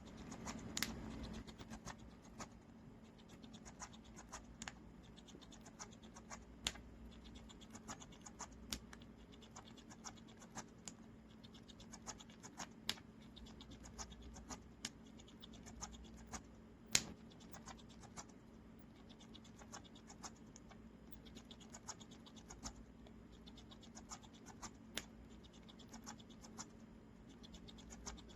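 Blue Quaker parrot (monk parakeet) making soft mouth sounds with its beak and tongue: a faint string of small, irregular clicks, one to three a second, with one louder click about two-thirds of the way through.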